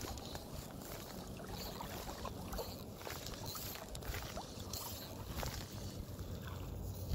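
Steady low rumble of wind on a phone's microphone over the soft wash of a flowing stream, with a few faint, brief ticks and swishes.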